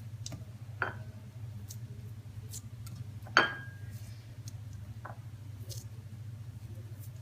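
Kitchenware clinking as peeled mandarins are put into a small cooking pot: three separate knocks, the loudest about three and a half seconds in with a short ring. A steady low hum runs underneath.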